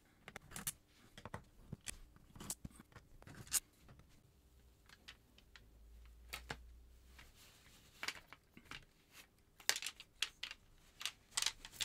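Scattered light clicks and knocks of an Ableton Push 2 MIDI controller being taken apart by hand: a screwdriver working on its circuit board, then the unit lifted and turned over, with a closer run of clicks near the end.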